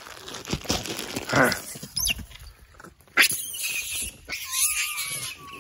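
Long-tailed macaques calling while crowding round to be fed: short rising squeals, a burst of shrill screeching, then one long wavering call near the end.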